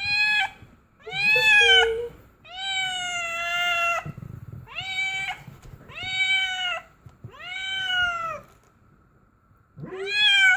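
A cat meowing about seven times in a row, each call rising and then falling in pitch, some short and some drawn out.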